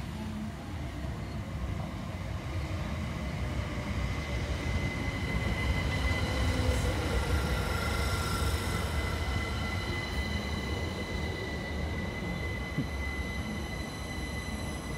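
c2c Electrostar electric multiple unit running along the platform: a continuous rumble of wheels on rail, with a steady high-pitched whine that sets in about four seconds in.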